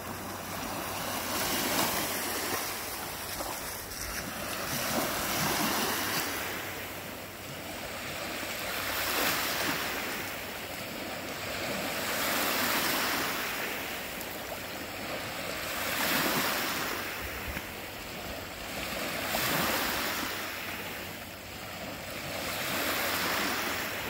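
Lake Michigan waves breaking and washing onto the shore, one surge about every three and a half seconds, with a steady wash between.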